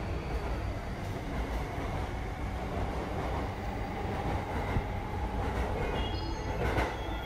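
Recorded sound of a full-size electric commuter train running along the track, with a brief high squeal near the end.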